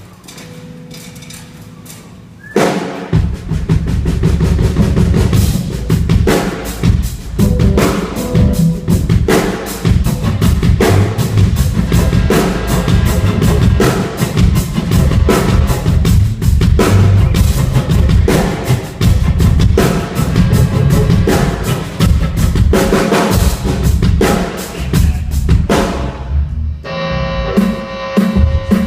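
Live band playing loudly at a sound check, driven by a drum kit with bass drum and snare. After a quiet start with a few held notes, the full band comes in suddenly about two and a half seconds in, and drops back briefly near the end.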